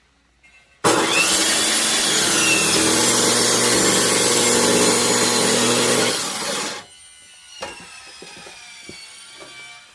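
A power saw cutting through an oak firewood log. One loud, steady cut starts about a second in and drops off sharply about seven seconds in, leaving a much quieter sound.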